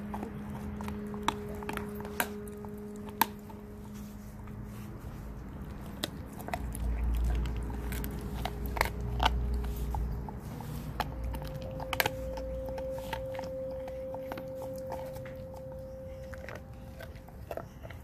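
A dog gnawing on a raw whitetail deer foreleg: its teeth make wet chewing and sharp, scattered cracks and crunches on the bone. A low rumble comes in from about seven to ten seconds in, under a faint steady hum.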